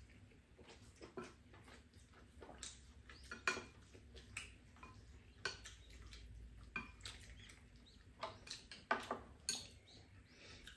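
Chopsticks and a spoon tapping and scraping in ceramic rice bowls during a meal: quiet, irregular clicks and clinks, a few sharper than the rest.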